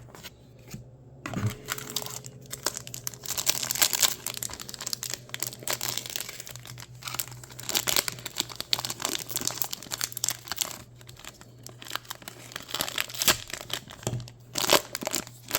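Foil Pokémon card booster pack wrapper crinkling and crackling as it is handled and opened, in a dense run of small crackles.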